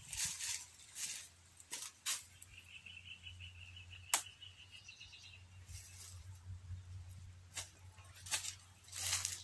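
Dry plant material being handled, with scattered rustles and several sharp snaps, the sharpest about four seconds in. A short buzzing trill sounds faintly in the background through the middle.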